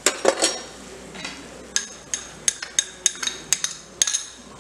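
Metal kitchen utensils clinking: a few knocks at the start, then about a dozen quick, sharp metallic taps with a bright ring, starting about two seconds in.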